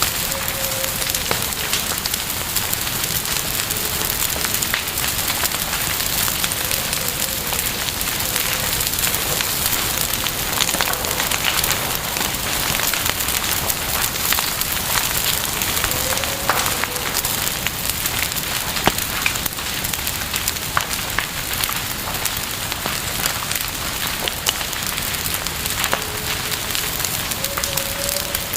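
Wood fire burning with a steady hiss and frequent irregular crackles and pops, and a few faint short whistling tones now and then.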